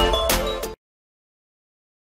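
Background music with a beat, cutting off abruptly under a second in; then dead silence.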